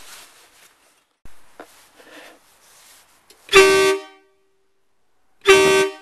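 Horn of a Volvo semi-truck tractor blown twice in short blasts about two seconds apart, each a single steady note lasting about half a second.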